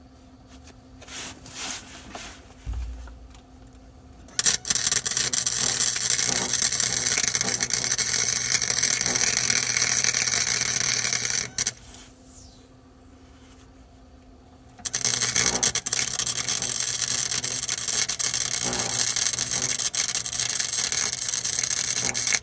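Electric arc welding on thin car-body steel: two long, steady crackling runs of about seven seconds each, the first starting about four seconds in, with a few light knocks before it.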